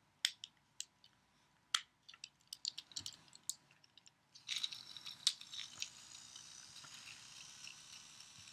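Sharp plastic clicks from handling the toy, then about four and a half seconds in a Trackmaster Spencer toy train's battery motor switches on and runs with a steady high-pitched whir.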